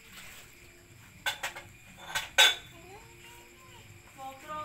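Galvanized metal basin clanking a few times as puppies eat rice from it and knock against its rim and sides; the loudest clank comes about two and a half seconds in.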